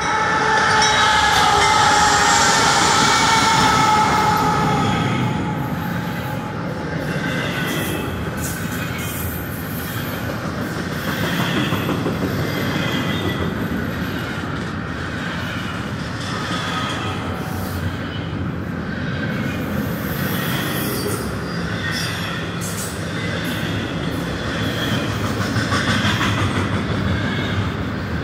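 CSX freight train passing close by: the lead diesel locomotive goes by loudest in the first few seconds, then double-stack intermodal well cars roll past with a steady wheel rumble, intermittent wheel squeal and metallic clanks.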